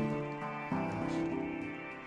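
Instrumental background music, with sustained notes that change about every second.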